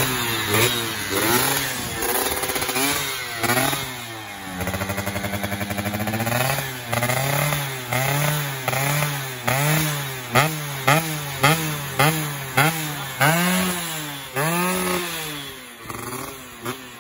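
Yamaha F1ZR's two-stroke single-cylinder engine, breathing through a bored-out stock exhaust with an RTX silencer, revved in short throttle blips that rise and fall about once or twice a second after one longer rev. Kept to light revs because the engine is still being run in on a new piston.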